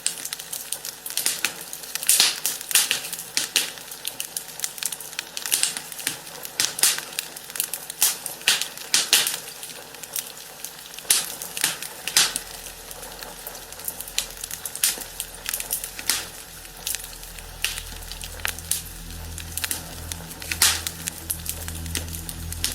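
Fire in a fireplace crackling, with irregular sharp pops and snaps over a low hiss. A low steady hum comes in underneath from about halfway.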